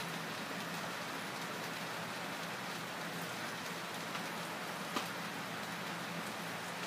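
Steady rain-like hiss with a faint low hum under it, and a single short click about five seconds in.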